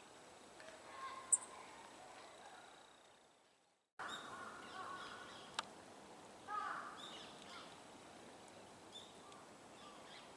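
Faint cawing of a large-billed crow, a few calls from about four seconds in. Before that come a few faint small-bird chirps.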